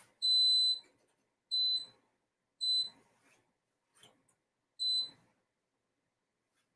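Electronic beeps from an electric range's control panel as its buttons are pressed to set the oven: one longer beep, then three short ones about a second apart, each a single high tone.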